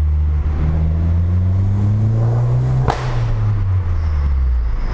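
Abarth 500's 1.4 turbo four-cylinder, running through a decat pipe and Ragazzon exhaust, accelerating with its pitch climbing for about three seconds. A short sharp crack follows, and then the revs fall away as it eases off.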